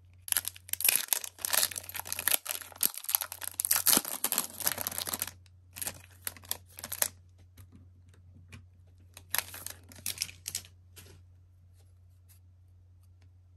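A hockey card pack wrapper being torn open and crinkled: about five seconds of dense crackling, then shorter rustles a little later and again around ten seconds in.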